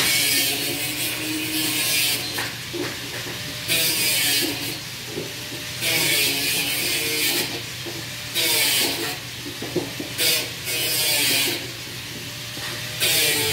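Short bursts of hissing, each about a second long and coming every two to three seconds, over a steady low hum of workshop machinery in an aluminium fabrication shop.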